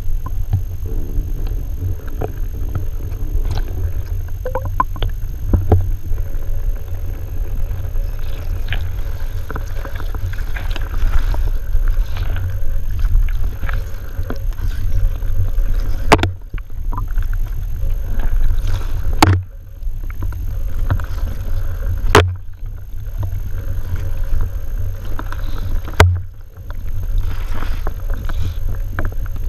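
Muffled low rumble of water moving around an underwater camera in shallow water, heard from inside its housing. Four sharp knocks come in the second half, each followed by a brief drop in level.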